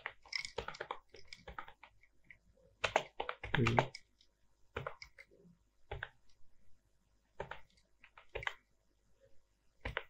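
Typing on a computer keyboard: irregular bursts of key clicks with short pauses between words, the heaviest cluster of strokes about three to four seconds in.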